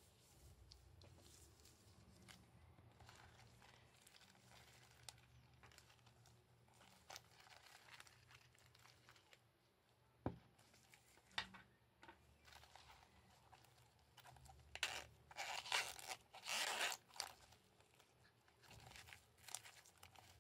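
Gloved hands handling a leather long wallet and its wrist strap, with soft rustles and a couple of sharp clicks around the middle. Then the wallet's metal zip is pulled open around its edge in a few short, noisy pulls, the loudest sound, about three-quarters of the way through.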